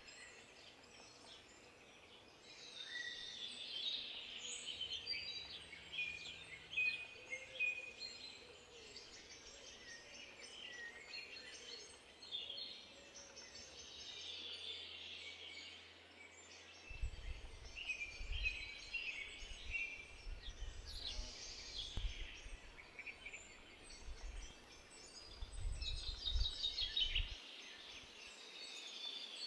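Garden birds singing, many short high chirps and trills. From about halfway a low rumble comes and goes.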